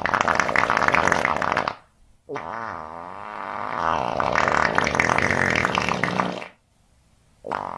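A run of long, drawn-out farts. One ends about two seconds in, a second lasts about four seconds with a wavering pitch near its start, and a third begins near the end.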